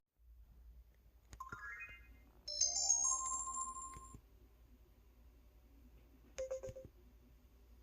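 EV-W350 phone's built-in electronic sound effects. A click and a quick rising run of tones come first, then a bright synthesized chime of several tones lasting about a second and a half. A short blip of tones follows about six and a half seconds in.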